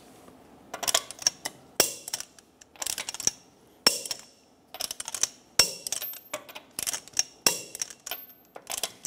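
Torque wrench ratchet clicking in short runs as the wheel's lug nuts are tightened to 100 foot-pounds, with brief pauses between strokes.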